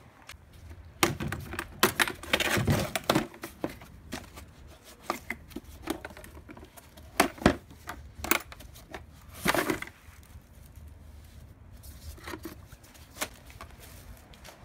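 Tools and a hard plastic tool case being handled and rummaged through: irregular clatters, knocks and rattles, busiest in two spells, near the start and past the middle.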